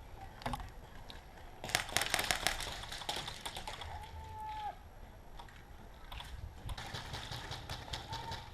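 Bursts of rapid clicks and cracks, the densest about two seconds in and again near the end, with a short high tone held for under a second in between.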